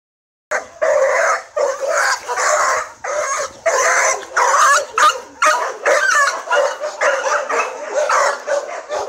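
Dog barking over and over in a long run of loud barks, about one or two a second.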